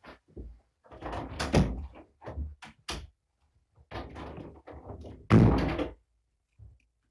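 A run of knocks, thuds and rattles, with the loudest bang about five seconds in.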